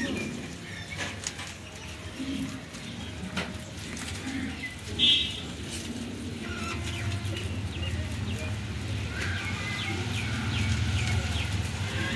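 Farmyard birds calling, with one short loud call about five seconds in. A low engine hum comes in around seven seconds in and slowly grows louder.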